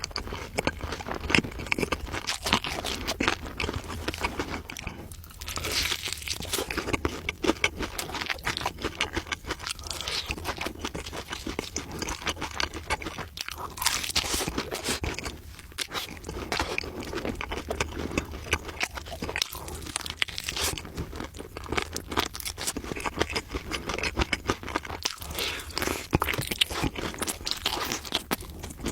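Crunchy food being chewed: a dense, irregular run of rapid crunching clicks.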